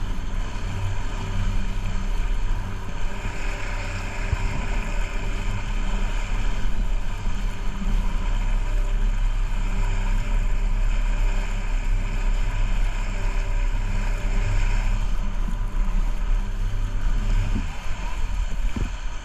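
Motorboat engine running steadily under way, with water rushing and churning past the hull.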